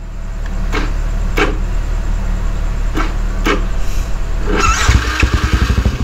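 Yamaha LC135 single-cylinder four-stroke being cranked by its stock electric starter, which the rider calls a bit heavy. The starter turns it over for about four and a half seconds before the engine catches near the end and runs with a fast, loud pulsing beat from its cut GL Racing exhaust.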